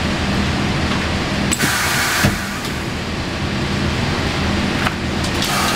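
Faratron vinyl heat sealer with rotary turntable running: a steady machine hum, with a sharp air hiss about a second and a half in that ends in a clunk. A click follows later, and another hiss starts near the end.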